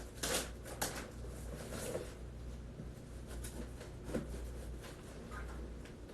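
Cardboard shipping box and its packing being opened and handled: short scrapes and rustles, strongest in the first two seconds, and a light knock about four seconds in, over a steady low hum.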